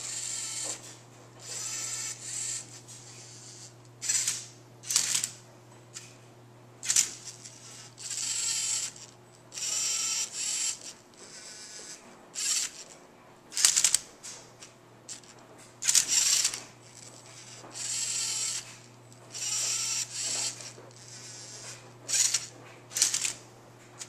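LEGO Mindstorms robot's servo motors whirring in short bursts, about one a second, with plastic parts clicking and clacking as it turns and tilts a Rubik's cube and moves its colour-sensor arm to scan the faces.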